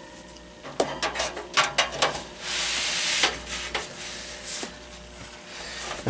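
Handling noises from a metal box fan being turned around on a workbench: a series of knocks and clicks from its cabinet and plastic grille, with a scraping rub about two and a half seconds in.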